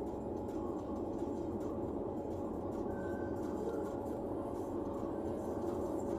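Steady road and tyre noise with engine hum, heard inside the cabin of a car driving on a highway.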